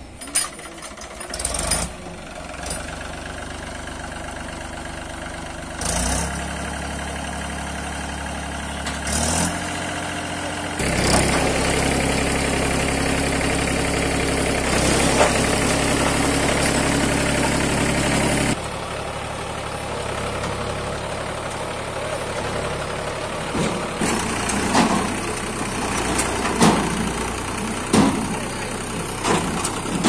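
Mahindra tractor's diesel engine running, revved up for about seven seconds in the middle while the hydraulic ram tips the loaded trailer, then dropping back to a lower speed. Several short knocks near the end as the load comes off.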